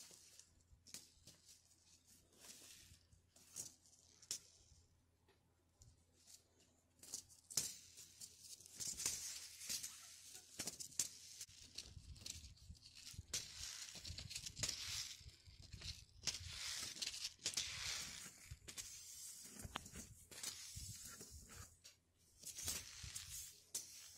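Paper seed packets rustling and crinkling in uneven bursts as they are shuffled by hand, sparse at first and louder from about seven seconds in.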